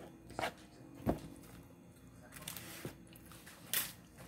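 Close-up eating sounds: a plastic fork scraping and tapping against a disposable plate of rice and beans, with chewing. There are a few sharp clicks and smacks, the loudest just over a second in and another near the end.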